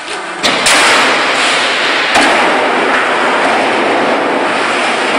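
Roll-forming machine running as corrugated metal roofing sheet comes out over the outfeed table, a loud, steady metallic din. A sharp clank about half a second in, after which the noise gets louder, and another knock a little after two seconds.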